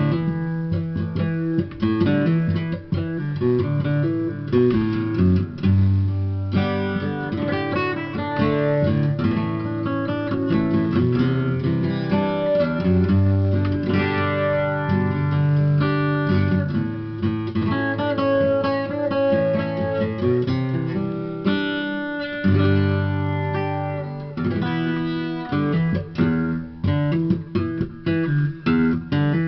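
Acoustic guitar played solo: an instrumental passage with bass notes under picked chords.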